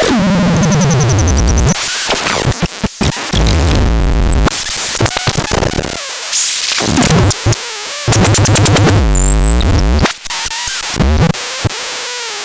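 Electronic synthesizer making chaotic, noisy sounds: a tone sweeping down in pitch, bursts of hiss, stuttering clicks and warbling whistles, changing every second or two.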